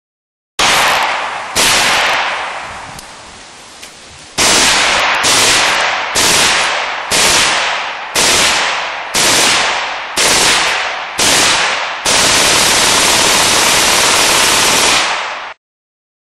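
Lakeside Machine LM7 .22 LR belt-fed upper on an M16 firing full auto, cyclic rate about 1150 rounds a minute. It fires a string of short bursts about a second apart, then one long burst of about three seconds that cuts off suddenly.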